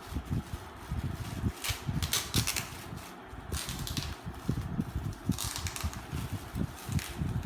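Gift wrapping paper rustling and crackling as a present is unwrapped, in two longer bursts, with irregular handling knocks and bumps.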